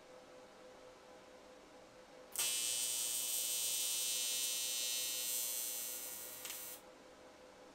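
TIG welding arc buzzing while a tack weld is put on a motorcycle intake manifold. It starts about two seconds in, holds steady for about four seconds, eases off slightly and cuts off near the end, over a faint steady hum from the welder.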